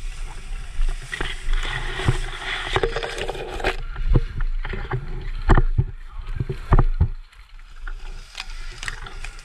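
Tall grass and brush rustling and swishing against the camera and gear as a person pushes through it, with several scattered sharp snaps and knocks.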